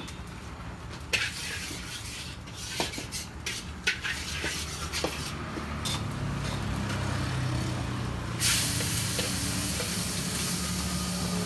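Bánh xèo frying in lard in aluminium pans, with scattered clicks and scrapes of a utensil on the pans. About eight seconds in, a loud sizzle starts suddenly and keeps going.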